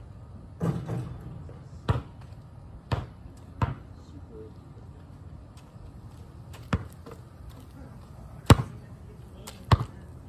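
A basketball thudding off the hoop under a second in, then bouncing on asphalt: single sharp thuds at irregular gaps, about seven in all.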